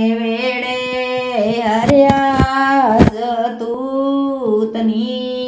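A woman singing a long, wordless opening phrase of a Punjabi folk song, holding each note and bending between them. A few sharp knocks sound about two and three seconds in.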